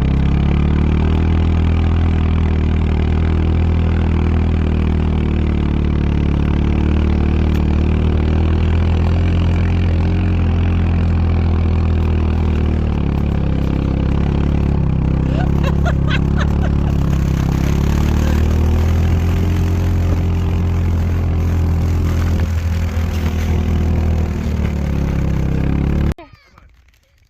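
Engine running steadily at low speed, its pitch rising and falling a little, with a few short high chirps about halfway through; it cuts off abruptly near the end.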